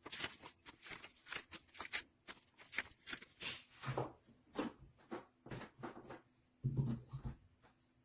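Handling noise: a run of irregular clicks and rustles, with a few dull thumps about four seconds in and again near seven seconds.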